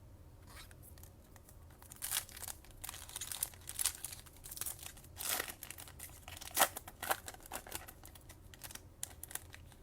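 A trading card pack's wrapper being torn open and crinkled by hand, a run of irregular sharp crackles and rips.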